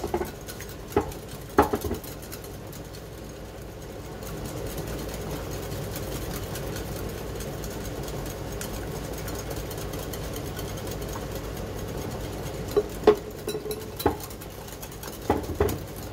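A plastic measuring jug and glass mixing bowl knocking and clinking a few times, near the start and again near the end, over a steady low hum.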